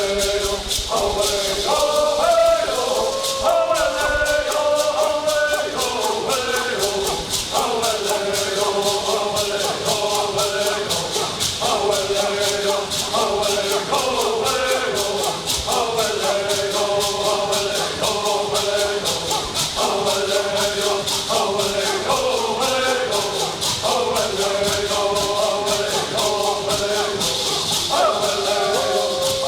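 Traditional Cahuilla bird songs: a group of voices singing in unison in short repeated phrases, accompanied by gourd rattles shaken in a fast, steady beat.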